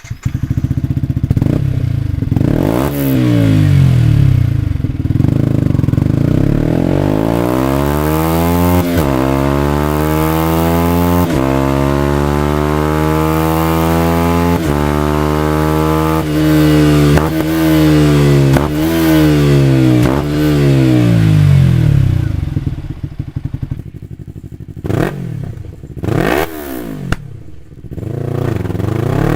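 Yamaha YZF-R series sportbike engine through an Akrapovic full-system exhaust, revving up and down again and again with sharp drops in pitch between the climbs. Near the end it goes quieter and choppier, with short blips of revs.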